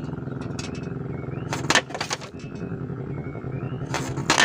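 An engine running steadily, with several sharp clacks a second or so in and again near the end, and faint short high chirps over it.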